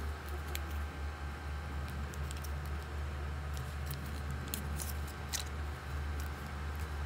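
Fingers handling and picking at a Xiaomi wireless earbuds' black plastic charging case, giving scattered light clicks and ticks, over a steady low hum.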